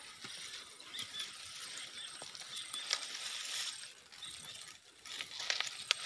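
Grass and plant stems rustling and crackling against a handheld phone as it is moved, with scattered small clicks. The sound swells about halfway through and again near the end.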